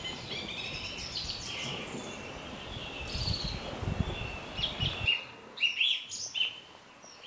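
Dawn chorus of New Zealand bush birds: song thrush, blackbird, tui, New Zealand wood pigeon and fantail. Many short chirps and whistled phrases overlap. A low background rush underneath cuts off about five seconds in, leaving the birds clearer.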